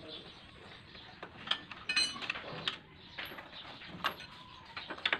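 Metal hand tools and small parts clicking and knocking while bolts are worked loose on a scooter, with one ringing metal clink about two seconds in.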